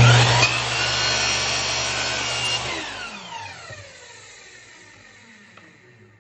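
Electric miter saw started and cutting through a piece of wood, loud from the first instant. About two and a half seconds in, the trigger is released and the motor and blade wind down with a falling whine that fades out near the end.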